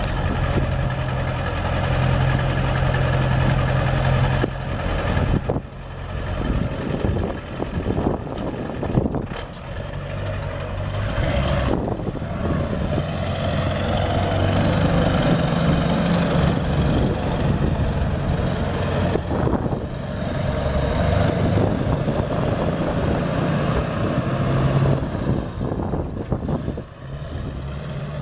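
A 1999 Ford F550's 7.3-litre V8 diesel engine running, with its speed shifting up and down a few times.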